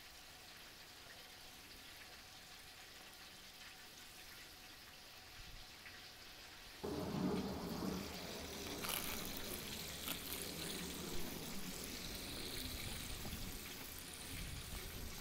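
Chicken drumsticks deep-frying in a pot of hot oil over a propane burner, a steady bubbling sizzle like light rain; it is faint at first and gets noticeably louder about seven seconds in.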